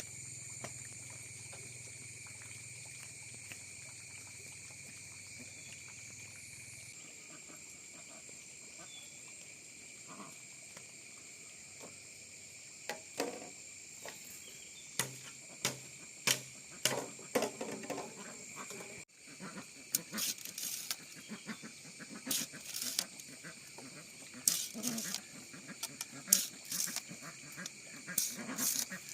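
Steady high buzzing of insects, with many short, sharp sounds coming thick and fast from about halfway on.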